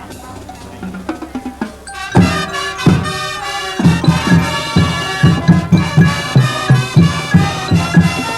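High school marching band playing. A softer passage gives way to two loud ensemble hits about two seconds in. From about four seconds in, wind chords sound over a steady low drum beat of about three beats a second.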